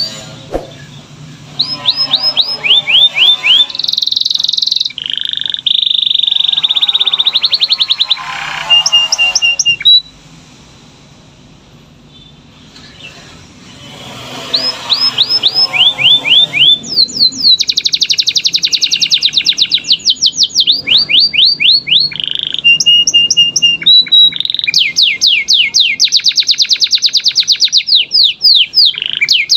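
Domestic canary singing: runs of rapid repeated sweeping notes and long fast rolls, high-pitched, with a pause of a few seconds about a third of the way in.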